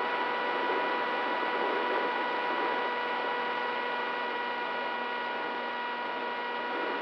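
Electric brushless motor and propeller of an FPV flying wing, heard from the onboard camera in flight: a steady whine at constant pitch over rushing air noise.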